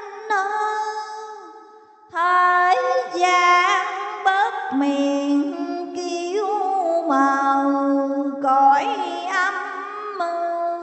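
A female voice singing a slow, wordless-sounding melody of long held notes that waver and slide between pitches, in the drawn-out chanting style used for sung Buddhist scripture. The singing pauses briefly about two seconds in, then goes on.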